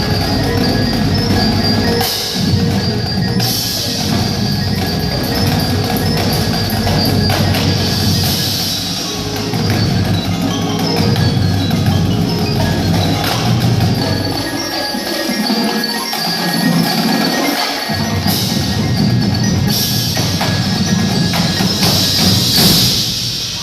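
Percussion ensemble playing: mallet keyboards such as marimba, glockenspiel and chimes over drums and other percussion.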